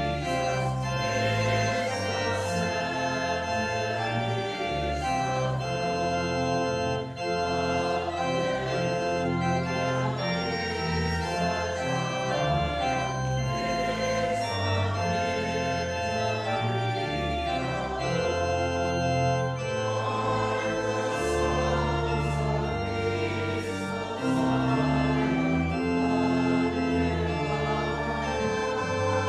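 Pipe organ playing a hymn in sustained chords, with a congregation singing along.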